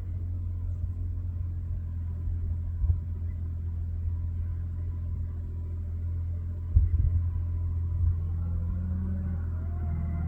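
A vehicle engine running steadily at low speed, with a few short thumps, and a rising pitched sound starting near the end.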